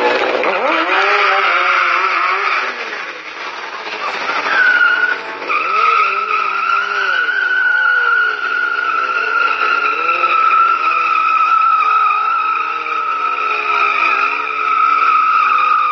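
Sport bike's rear tyre squealing in a long steady screech as the bike slides round in tight circles, over the engine's revs rising and falling. The steady squeal sets in about five seconds in.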